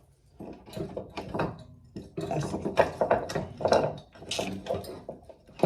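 Irregular knocks and clatter of objects being handled.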